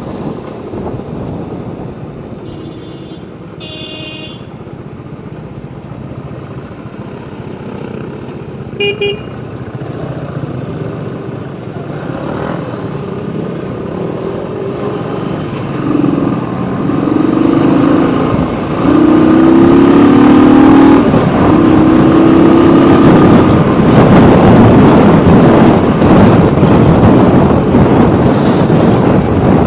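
Motorcycle riding through traffic with vehicle horns honking: two short high toots in the first ten seconds, then a run of longer, lower horn blasts about halfway through. The engine and road noise grow louder in the second half.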